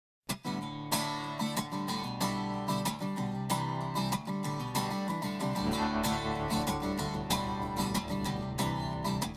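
Music: acoustic guitar strumming a steady rhythm, with deeper notes joining about halfway through.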